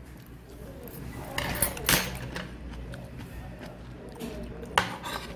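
Metal spoon clinking and scraping against a ceramic plate while scooping food, with a few quick strikes about one and a half to two seconds in and one more near the end.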